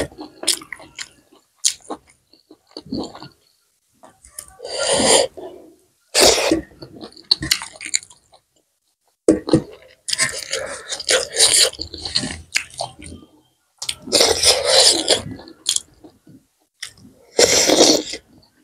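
Close-miked eating: a person chewing mouthfuls of rice and buffalo meat curry eaten by hand. The loud wet mouth sounds come in bursts of about a second every few seconds, with faint clicks between.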